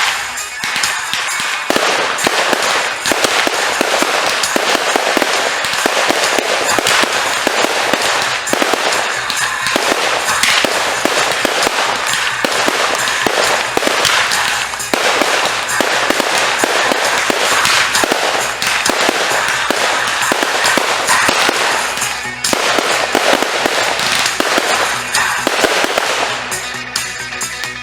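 A fireworks display goes off in a dense, continuous run of crackles and bangs, easing off near the end, over music.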